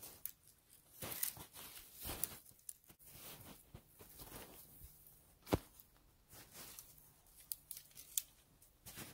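Footsteps crunching through snow, roughly one a second, with a single sharp snap about five and a half seconds in.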